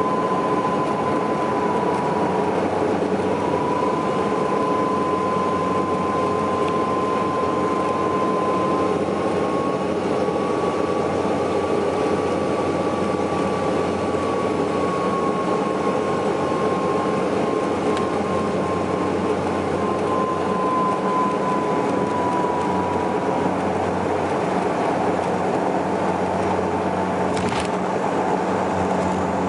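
Cabin noise of a Saab 340B turboprop airliner on landing approach: its two General Electric CT7 turboprops drone steadily with a low hum and a high whine that wavers slightly in pitch, then fades about three-quarters of the way through. A short click near the end.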